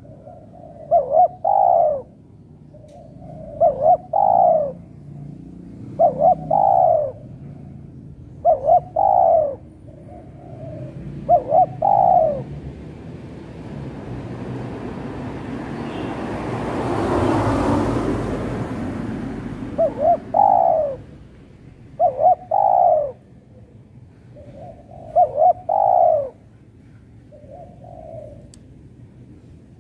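Spotted dove cooing, repeating its short multi-note phrase every two to three seconds. The calls break off in the middle while a rushing noise swells and fades, then resume.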